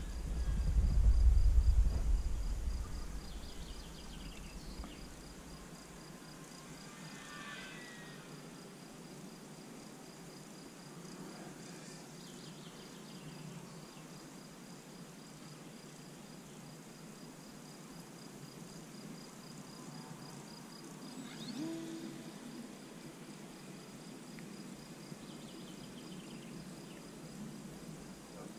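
Insects chirring steadily in a high, fast-pulsing tone, with a few faint higher calls over it. A gust of wind buffets the microphone with a low rumble during the first few seconds.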